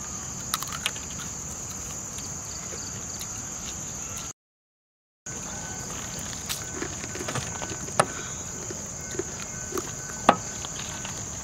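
Crickets chirring steadily in a high band, with scattered clicks and snaps from roasted mutton leg being torn apart by hand and bitten off the bone. The sharpest snaps come near the end. The sound cuts out completely for about a second near the middle.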